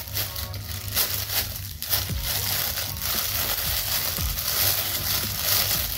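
Thin plastic disposable glove crinkling and rustling close to the microphone as a gloved hand rubs at hair coated in dye, in irregular scrapes and crackles.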